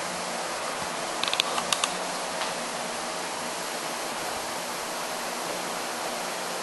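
Steady hiss with a faint low hum, broken about a second in by a quick cluster of light metallic clicks and clinks from the steel chain wrapped around the anvil being handled.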